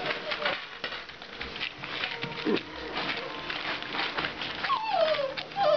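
English mastiff puppies scrambling on a plastic tarp strewn with shredded paper: constant crinkling and rustling with quick clicks of paws and claws. Near the end come two short falling whines from a puppy.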